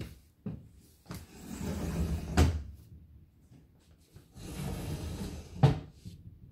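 Wooden furniture being handled: two rubbing, scraping movements, each ending in a sharp wooden knock, one about two and a half seconds in and one near the end.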